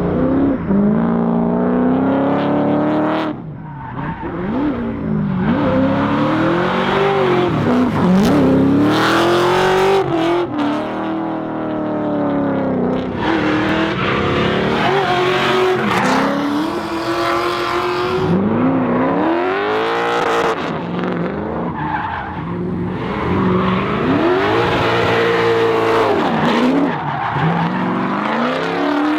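Drift car engines revving hard, the pitch climbing and dropping again and again as the throttle is worked, with tyres squealing and skidding through the slides.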